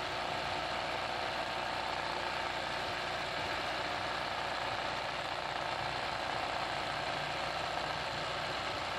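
Sewing machine running steadily at speed for free-motion embroidery, the needle stitching rapidly through fabric stretched in a hoop as green satin-stitch leaves are filled in.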